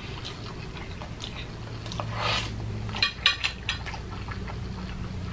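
Close-miked mouth sounds of a person eating fettuccine Alfredo: chewing and wet smacking, with a louder smack about two seconds in and a run of sharp clicks a second later, over a low steady hum.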